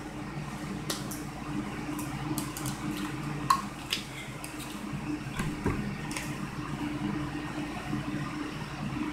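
Drinking from a plastic water bottle, then the bottle crackling and clicking as it is handled and closed, with a sharp plastic click about three and a half seconds in. A steady low hum runs underneath.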